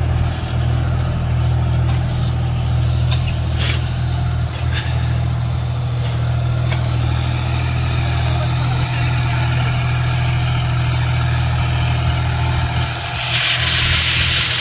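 John Deere 5105 tractor's three-cylinder diesel engine running steadily under load, pulling a disc harrow through tilled soil. A few light knocks in the first half, and a hissing rasp comes in near the end.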